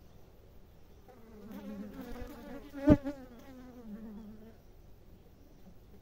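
A honeybee buzzing close past the microphone for about three seconds. Its hum wavers up and down in pitch, swelling and then fading. There is one sharp knock near the middle, the loudest moment.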